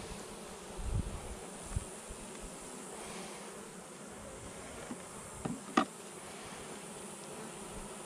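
Honeybees from an opened Saskatraz colony buzzing around the hive in a steady hum, with a short sharp knock just before six seconds in.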